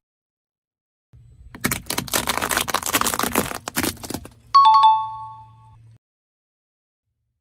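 Dense crackling crunch lasting about two and a half seconds as something is crushed, over a low hum, followed by a bright two-note ding-dong chime, the loudest sound.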